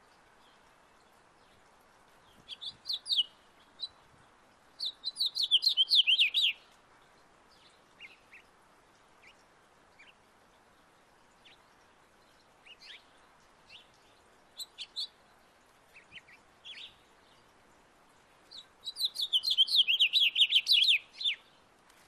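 Male house finch singing: a few notes about two and a half seconds in, then a long, rapid warbling song about five seconds in. Short single notes are scattered through the middle, and a second long warbling song comes near the end.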